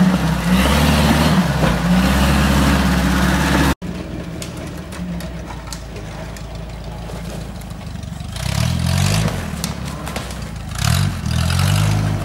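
UAZ-469 engine revving hard and unevenly under load as it drags the jeep out of deep mud. The sound cuts off abruptly about four seconds in, and a quieter off-road vehicle's engine follows, revving up twice with rising pitch.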